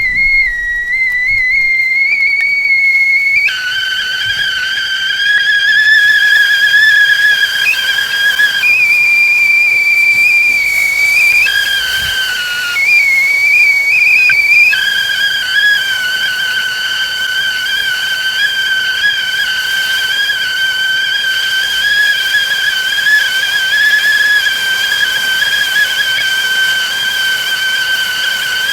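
Whistling teapot on the boil, steam forcing a loud shrill whistle: the water has come to the boil. The whistle jumps between a higher and a lower pitch several times during the first fifteen seconds, then holds a steady lower tone.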